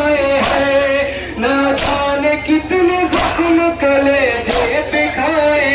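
A nauha, a Shia mourning lament, chanted by male voices without instruments, with loud collective matam (chest-beating) in unison about every second and a third.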